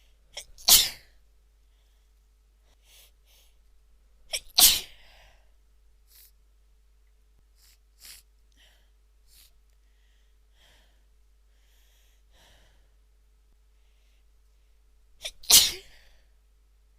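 A woman sneezing three times. Each loud sneeze comes straight after a short intake of breath: the first about a second in, the second near five seconds in, the third near the end. Faint breathing sounds fall in the gaps between them.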